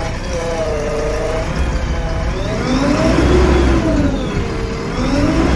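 JCB 3DX backhoe loader's hydraulic pump whining over the diesel engine's rumble. The whine holds steady at first, then rises and falls in pitch twice as the engine speed changes. It is an abnormal pump noise, a sign of a hydraulic pump fault.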